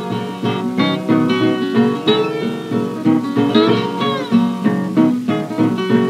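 Solo acoustic guitar picking the instrumental introduction of a 1930 country blues song, with a few notes bent or slid downward. Played back from a 78 rpm record, so the sound is thin, with little in the highs.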